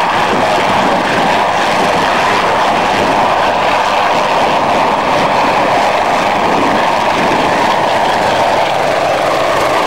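Junkers Ju 52/3m's three radial engines at takeoff power during the takeoff roll and lift-off, a loud steady drone.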